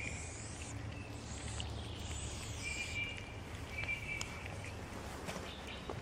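Cats chewing wet food from a plastic tub, small wet clicks, with birds chirping in the background over a low steady rumble.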